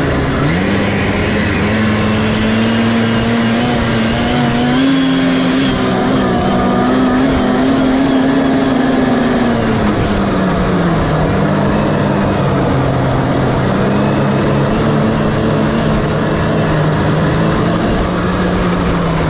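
1979 Scorpion Whip TKX snowmobile's Cuyuna two-stroke engine running under way on a trail, heard from the driver's seat and played back at one and a half times speed. The engine picks up about half a second in, holds high, eases off around ten seconds, runs steady and lower, then drops off near the end.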